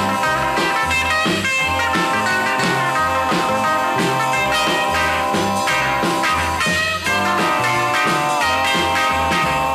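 Background rock music: an instrumental stretch with a guitar playing bent notes over a steady bass-and-drum beat.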